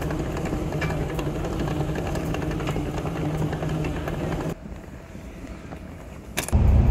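Moving walkway running with a steady low hum under the echoing noise of a large terminal hall. About four and a half seconds in it gives way to quieter hall ambience, and near the end a loud low rumble starts: the engine of an airport apron bus.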